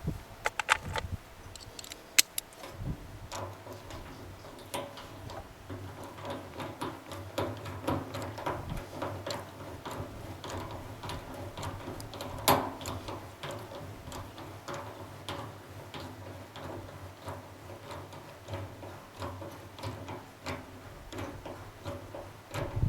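Small irregular clicks and taps of hands and tools working a new rubber fuel hose and metal hose clip onto a generator's fuel tap.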